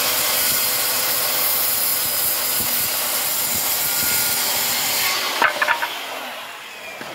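Corded circular saw running and cutting across a 5/4 wooden board. About five seconds in the saw is released and winds down, with a few knocks just after.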